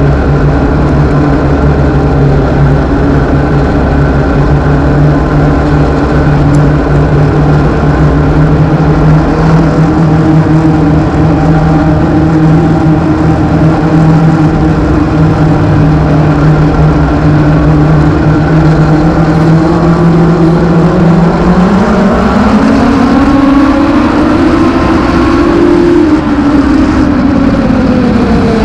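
Inside an INEX Legends car's cockpit, its Yamaha 1250 cc four-cylinder motorcycle engine runs at a steady, moderate pace for about twenty seconds. It then revs up for a few seconds and eases off again near the end.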